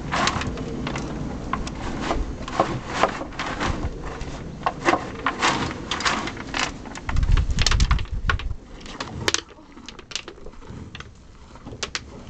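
Jersey cow eating feed from a plastic tub: irregular crunching and clicking bites as her muzzle works through the feed. A low rumble comes about seven seconds in, and the sounds thin out to a few clicks near the end.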